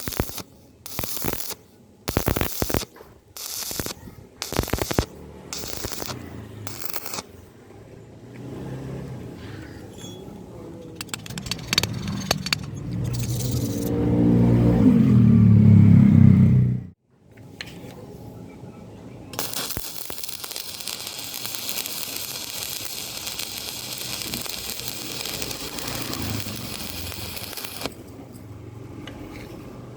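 Stick-welding workshop sounds. A string of short scraping bursts comes first, then a louder machine hum that rises in pitch and stops abruptly about halfway through. Near the end comes about eight seconds of steady electric-arc crackle and hiss.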